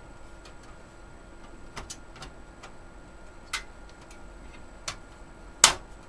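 Metal I/O shield plate being pushed into the rear opening of a steel PC case, which is tricky to seat: a few scattered light clicks, then one much louder snap near the end as it pops into place.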